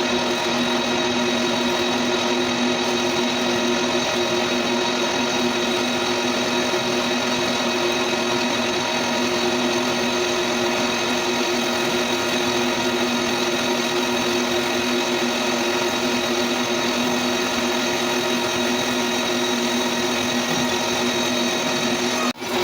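Metal lathe running steadily, a constant machine hum with a fixed whine and no change in speed.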